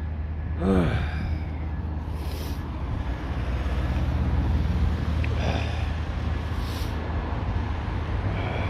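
Outdoor street background: a steady low rumble, with a short falling sigh from the person filming about a second in and a couple of brief faint hisses later.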